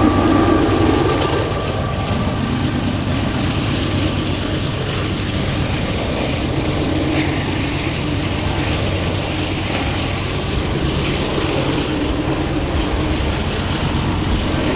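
Diesel locomotive at the rear of a loaded freight grain train passing close at the start. After that the train's rumble settles into a steady, lower level as it moves away down the line.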